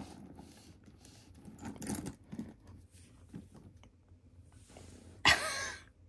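Quiet handling of a leather handbag being settled on a digital kitchen scale: soft rustles and light knocks, loudest about two seconds in. Near the end, a short throat sound like a cough.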